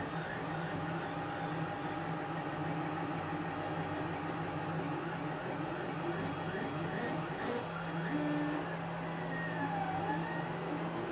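3D printer running, its stepper motors giving a busy stream of short whirring, chirping tones over a steady hum as the print head moves. Near the end one tone swoops down and back up in pitch.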